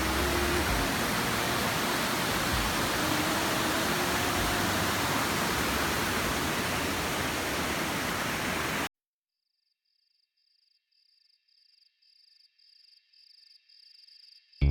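Steady rush of a waterfall, the Fiumelatte stream cascading down through the village, which cuts off abruptly about nine seconds in. Faint, regular high pips follow, about two or three a second, growing louder toward the end.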